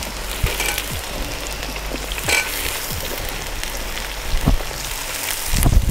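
Sliced onions sizzling in hot oil in a wide metal pan, with a few clicks of a slotted spoon against the pan as they are stirred.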